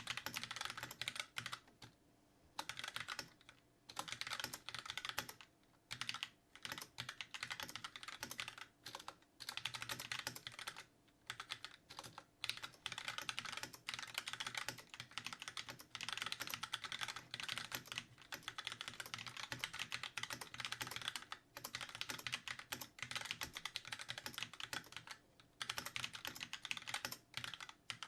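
Fast typing on a Magicforce 68 mechanical keyboard with Gateron Black linear switches: dense runs of key clacks broken by short pauses.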